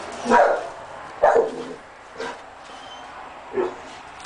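Dog barking, four barks about a second apart, the first two the loudest.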